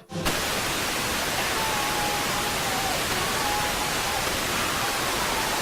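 Television static: the loud, steady hiss of a dead analog channel, switching on suddenly a moment in. It is the sound of no signal, the station having gone off the air.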